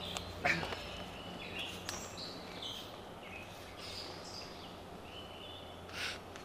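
Woodland songbirds chirping, many short calls of several kinds, over a low steady hum. A short sharp noise about half a second in, and a smaller one near the end.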